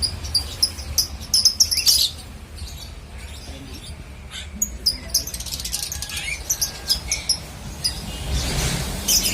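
Many caged songbirds chirping, with quick high calls in dense flurries early on and again past the middle, over a steady low rumble.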